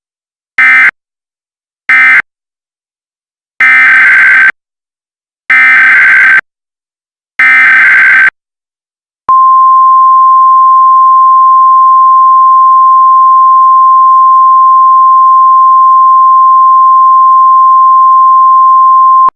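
Emergency Alert System SAME header data bursts: two short bursts and then three longer ones of rapid, warbling digital tones. About nine seconds in they give way to a single steady alert tone just above 1 kHz, the 1050 Hz weather-radio warning alarm, held for about ten seconds and cut off abruptly.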